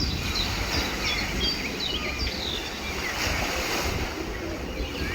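Sea surf washing steadily, with wind rumbling on the microphone. Many short, high chirps from small birds come throughout.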